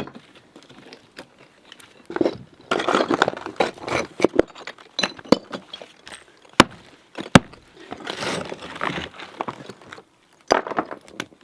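Bricks and cement rubble being handled and knocked together: scraping and rattling with scattered clinks, and two sharp knocks a little under a second apart, about two-thirds of the way through.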